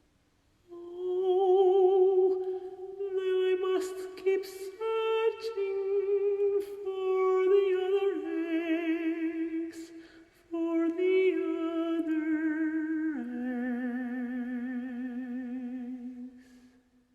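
A woman singing slow, long-held notes with vibrato, unaccompanied. The melody breaks off briefly about ten seconds in, then a last lower note is held until it fades near the end.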